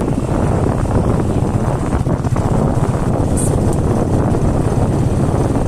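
Steady loud roar of fast-flowing water, with wind buffeting the microphone.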